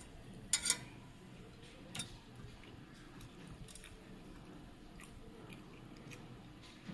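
Quiet sounds of a child eating rice by hand at a table: soft chewing and small clicks, with a sharp double click about half a second in and another click about two seconds in.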